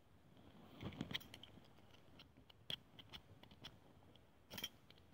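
Small camp cooking gear being handled: a brass spirit burner and its metal pot stand give short, sharp clicks and light clinks. The clicks come in a cluster about a second in, then singly, with a louder pair near the end.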